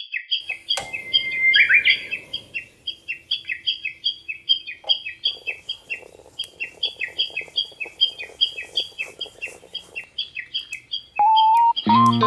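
A bird chirping over and over in a rapid, even series of short high calls, with one separate downward-swept call about two seconds in. Guitar music comes in near the end.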